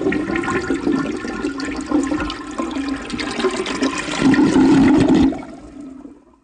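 Toilet flushing: a loud rush of water with gurgling that fades away over the last second and stops.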